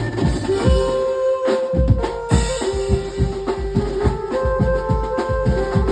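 Banjo party band playing: a melody of long held notes over a fast, dense drum beat. The drums drop out for a moment about a second and a half in, then come back with a hit.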